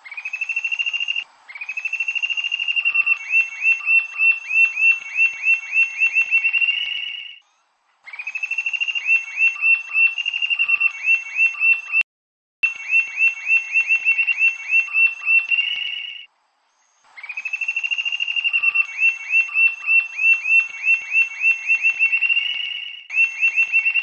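Rufous-tailed jacamar (ariramba-da-capoeira) singing: repeated songs of several seconds each, a fast run of high notes that breaks into a string of separate sharp notes, about three or four a second, with short pauses between songs.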